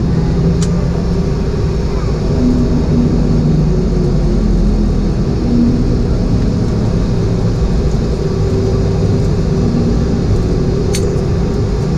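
Steady cabin rumble of a Boeing 717 with its rear-mounted Rolls-Royce BR715 turbofans running, heard from inside the passenger cabin, with a faint hum of steady tones and a couple of light clicks.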